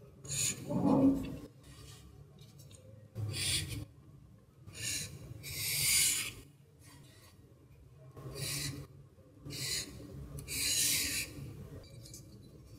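Ruling pen scratching across paper as ink strokes are drawn: a series of short scraping strokes, about seven or eight, each under a second long and separated by pauses.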